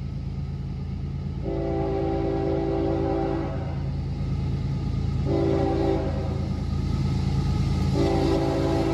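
Norfolk Southern diesel freight locomotive's multi-chime air horn sounding for the grade crossing: a long blast, a short blast, then the final long blast beginning near the end, following the standard long-long-short-long crossing signal. Under the horn runs a steady low rumble of the approaching train that grows slowly louder.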